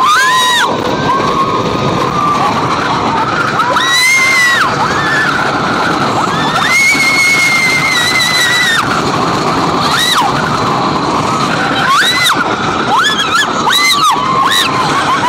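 Riders screaming on the Hurler, a wooden roller coaster, over a steady rush of wind and the rumble and rattle of the train on the track. The screams come again and again, high and held, the longest lasting about two seconds, from about seven seconds in.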